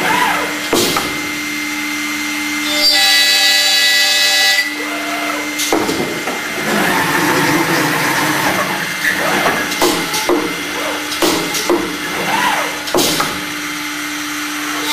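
CNC boring and routing machine at work on wooden parts. A steady low hum runs throughout, and a pitched spindle whine rises for a couple of seconds about three seconds in. Then comes a stretch of drilling and routing noise into wood, broken by several sharp clunks of the carriage and tooling.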